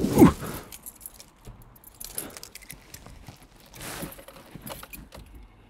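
A person climbing into a car's driver seat: a thump as he drops into the seat, then clothing rustling, small knocks and keys jingling.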